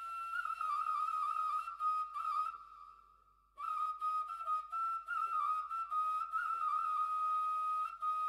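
Solo flute music: a long held melody note decorated with small trills and turns. It breaks off for about a second roughly three seconds in, then comes back.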